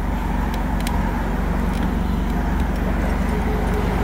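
Car engine idling steadily, a low even rumble, with a few light clicks about half a second and nearly a second in as pliers work the door-handle clip.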